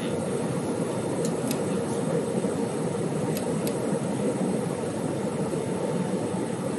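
Steady vehicle rumble with a constant low hum and a few faint ticks.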